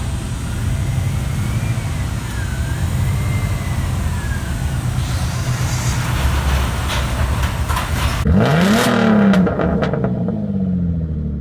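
Subaru WRX's turbocharged flat-four engine running steadily, then revved once about eight seconds in, the pitch climbing and falling back.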